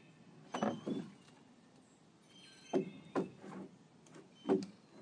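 About five short, dull knocks and clunks spaced irregularly, like something bumping against wood or a door; the loudest come about half a second in and near the end.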